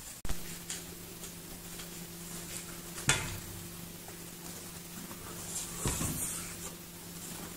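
Steady low hum with a single sharp knock about three seconds in, then soft thumps and scuffling as a kitten steps onto a plastic tray of dumplings about six seconds in.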